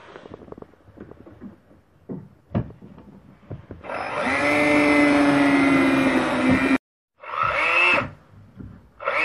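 Light clicks and taps of small wooden pieces being handled, then a Bosch cordless drill running into a wooden block for about three seconds and cutting off abruptly. A second, shorter run follows with its pitch dropping.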